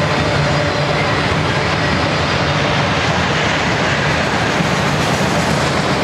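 Freight train of autorack cars loaded with automobiles rolling past at speed: a steady, loud rumble of steel wheels on rail.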